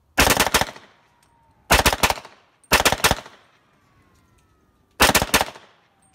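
MP5-clone carbine with a binary trigger firing four quick strings of shots, each about half a second long with several rapid shots, separated by short pauses. The binary trigger fires one round on the pull and one on the release.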